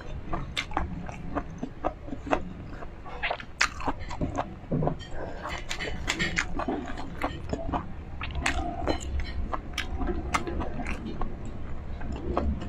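Close-miked chewing of crispy pork binagoongan and rice, eaten by hand: irregular crunches and wet mouth clicks.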